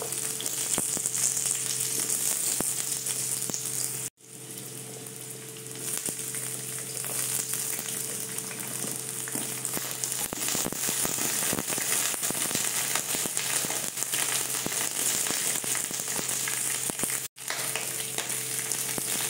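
Cut vegetables sizzling and crackling in hot mustard oil in an aluminium kadai, with more pieces added as they fry. The sizzle cuts out for an instant twice, about four seconds in and near the end.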